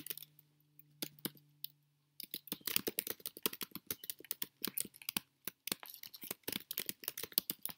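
Typing on a computer keyboard: a few keystrokes, a short pause, then a quick, steady run of key clicks from about two seconds in.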